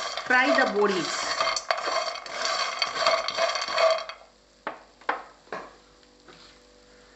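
A spatula stirring and scraping dried lentil dumplings (bori) around a nonstick wok as they fry, with dense clattering for about four seconds. The sound then drops off suddenly, leaving a few light clicks.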